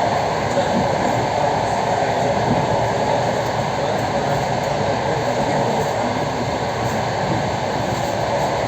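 Commuter electric train running steadily at speed: a constant rumble and rush of wheels on rail and moving air, heard from inside the carriage.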